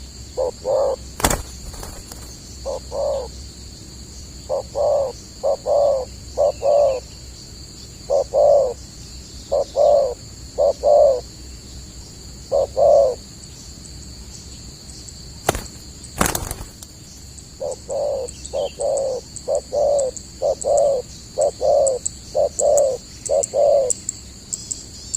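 Spotted dove (tekukur) cooing over and over in short phrases of two to four notes, pausing for a few seconds midway. A steady high insect drone runs underneath, and there are two sharp clicks, one near the start and one midway.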